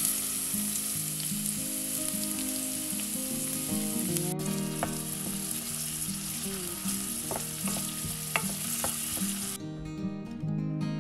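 Diced red onion sizzling in hot olive oil in a stainless steel pot, with a wooden spoon stirring and knocking against the pot a few times. The sizzling stops near the end, leaving guitar music.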